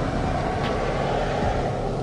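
Steady vehicle noise of a running car or passing traffic, swelling a little in the middle.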